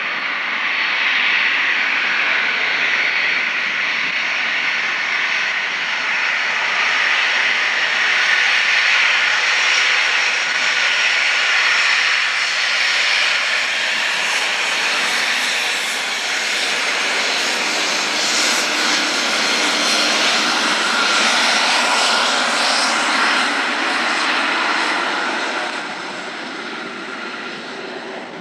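Cessna Citation XLS business jet's twin turbofan engines whining loudly as it arrives to land. The sound holds steady and loud, then drops off about three seconds before the end.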